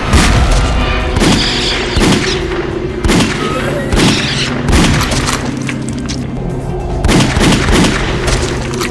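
Action music with loud booming hits and gunshot-like blasts, about one a second, from a light-gun zombie shooting game.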